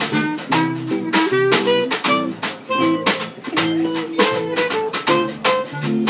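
Live acoustic jazz quartet playing: a clarinet melody over strummed guitar chords, a double bass line and a drum kit keeping a steady beat.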